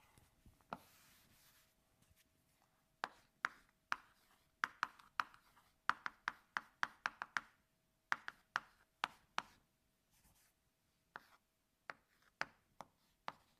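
Chalk writing on a blackboard: a long run of sharp taps and short scratches in irregular clusters, with a faint steady hum underneath.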